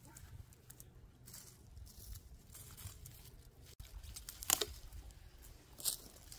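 Dry garden plant stems rustling and crackling as they are handled and cut at the base with long-handled bypass loppers, with two sharper snips in the second half.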